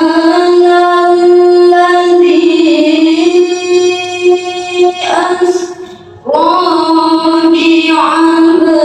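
A girl reciting the Qur'an in melodic tilawah style into a microphone. She holds one long, slightly wavering note for about five seconds, breaks for a breath around six seconds in, then begins the next long phrase.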